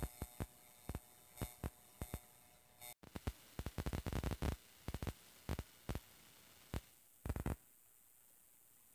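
Handling noise from a hand-held phone: irregular sharp clicks and bumps on the microphone over a faint hiss, thickest about four seconds in, with a brief dropout about three seconds in.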